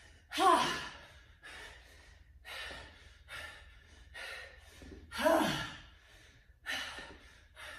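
A woman breathing hard during an intense workout: a steady run of quick, rhythmic panting breaths, with two louder voiced gasps, one just after the start and one about five seconds in.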